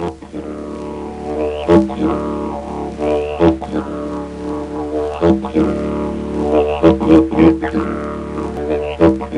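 Didgeridoo playing a continuous low drone as title music, its tone colour sweeping up and down, with sharp rhythmic accents every second or two.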